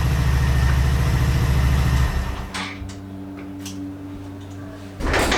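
Mutt Mastiff 125cc single-cylinder motorcycle engine running, loud and evenly pulsing, then dropping to a quieter steady run about two seconds in.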